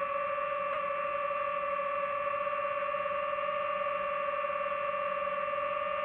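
Steady high whine of the DJI FPV drone's motors and propellers at a constant throttle, holding one pitch throughout.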